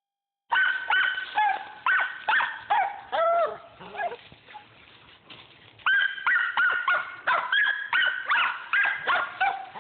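Squirrel dogs barking at a treed squirrel: rapid, high-pitched barks about two a second, each falling in pitch. They stop for about two seconds in the middle, then start again.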